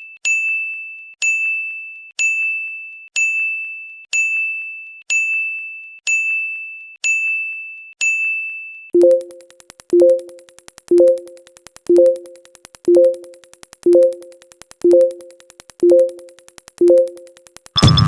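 Electronic sound effects: a high, bell-like ding repeating once a second and dying away each time, about nine times. It then switches to a lower two-note tone, also once a second, over a fast ticking. Just before the end, dense synthesizer music starts.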